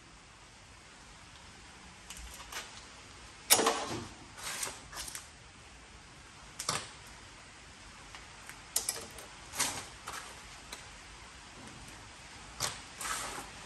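Small pieces of scrap brass and copper clinking as they are tossed by hand into sorting bins: a dozen or so sharp clinks at irregular intervals, the loudest about three and a half seconds in.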